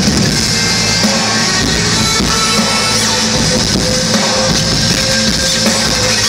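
Loud live concert music from the stage sound system, with held notes and no vocals, as heard from inside the crowd.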